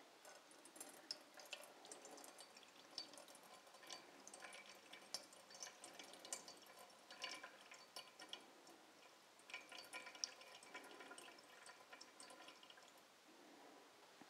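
Ponzu poured slowly from a bottle into a stainless steel bowl, falling as faint, irregular drips and small splashes, a few a second.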